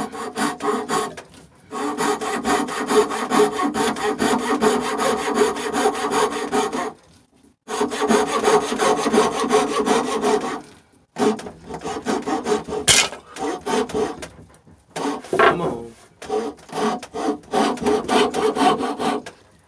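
Coping saw cutting through birch by hand: fast back-and-forth rasping strokes in runs of several seconds, broken by a few short pauses, with one sharp click about two-thirds of the way through.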